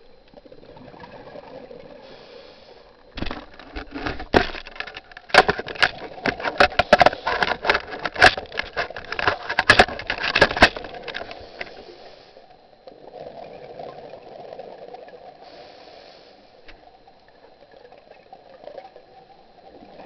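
Scuba diver breathing through a regulator underwater: a quieter hiss, then from about three seconds in a long, loud burst of exhaled bubbles crackling and popping, which eases off near eleven seconds into a softer hiss again.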